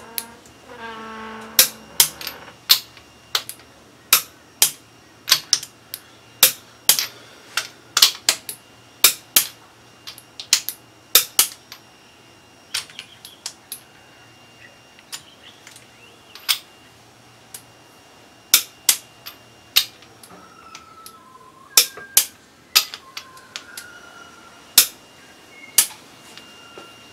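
Sharp, irregular metallic clicks, about one or two a second with some pauses, from a wrench working the cylinder-head bolts of an Ecotec V6.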